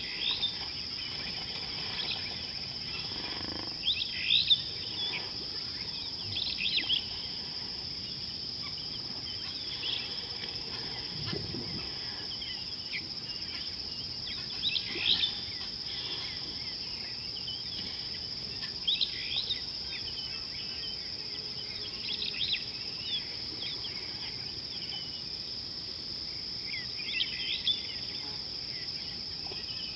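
Steady high-pitched drone of insects such as crickets, with birds calling in short bursts of chirps every few seconds.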